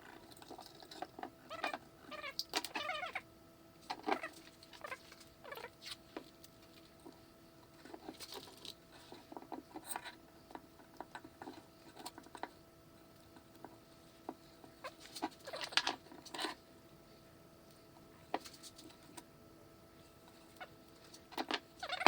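Intermittent short scratches and light knocks of a pencil and straightedge marking a center line on a rough-cut wooden sculpture blank, with the blank shifted on the bench now and then, over a steady electrical hum.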